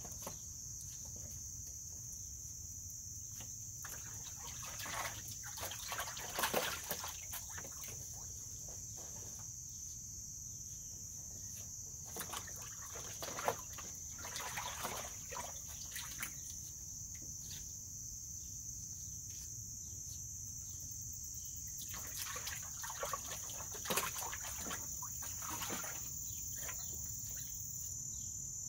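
Water splashing and sloshing in a plastic wading pool as an American mink swims, dives and climbs over the rim, in several short bouts. Insects trill steadily in the background throughout.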